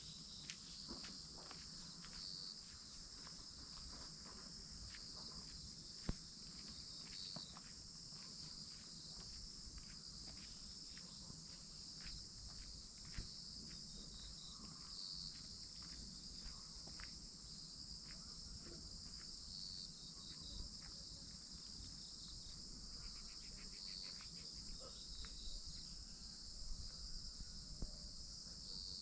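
Steady high-pitched chorus of insects, with scattered faint clicks and ticks throughout and one sharper click about six seconds in.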